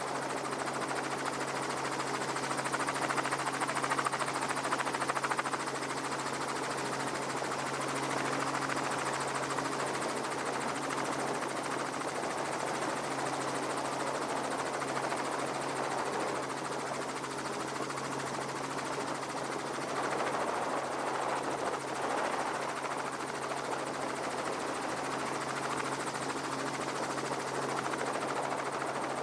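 Helicopter running steadily: an even rush of engine and rotor noise with a constant low hum that holds unchanged throughout.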